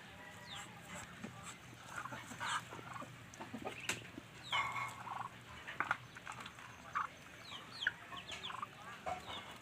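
Ducklings peeping: many short, high cheeps that fall in pitch, scattered irregularly, with a few sharp clicks among them.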